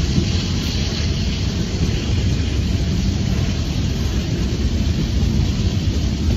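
Freight cars rolling past at close range, their steel wheels running on the rails in a steady, loud, low-heavy rumble.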